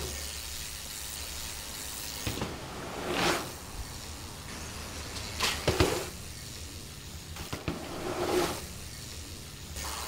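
Mountain bike tyres whooshing over dirt jumps several times, a few seconds apart, with a sharp knock about halfway through, likely a landing or a hit on the bike.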